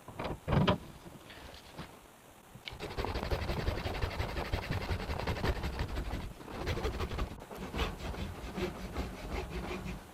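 Hacksaw sawing through the top lip of a plastic steerer bung, in quick, steady back-and-forth strokes that start about three seconds in, after a couple of handling knocks.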